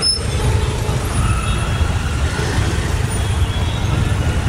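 Dense road traffic heard from a moving scooter: a steady low rumble of engines and road noise.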